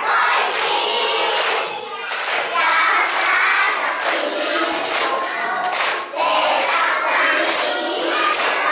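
A roomful of children singing together in unison while clapping their hands.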